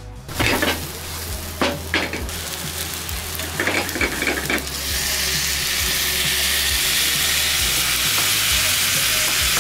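Food frying in a hot pan, with a few clatters of a utensil in the first half. About five seconds in, the sizzle swells into a loud, steady hiss.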